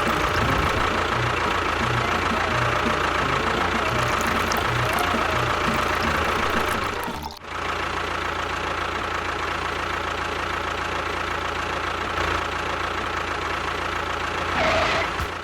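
An engine running steadily at idle with a faint, regular low knock. The sound drops out briefly about seven seconds in, then carries on steady.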